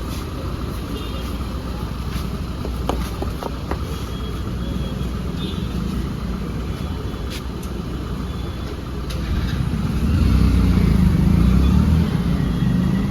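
Motor vehicle engine running with a steady low rumble, with scattered sharp clicks and knocks. The rumble grows louder for a couple of seconds about ten seconds in, then eases off.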